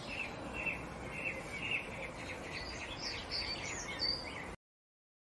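Short, high animal chirps repeating about twice a second, growing busier and higher-pitched after a couple of seconds, over a steady background hiss. The sound cuts off abruptly about four and a half seconds in.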